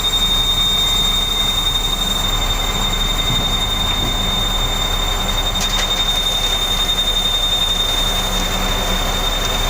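Concrete pump machinery running loud and steady during a slab pour, with a constant high-pitched whine over the engine noise.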